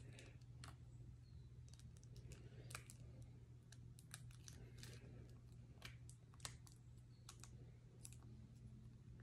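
Faint, irregular light clicks and ticks of board-game cards being handled: slid out of a small card pack and thumbed through by hand, over a low steady hum.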